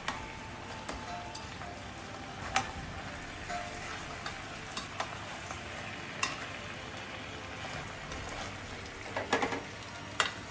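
Marinated chicken legs sizzling steadily in a pan on low flame, with a few sharp clicks of a utensil against the pan, several together near the end, as the pieces are turned.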